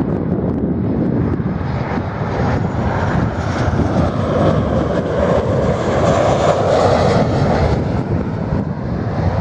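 Twin jet engines of a Ryanair Boeing 737 on final approach, a steady rushing drone that swells as the plane passes close by, loudest about six to seven seconds in, then easing off.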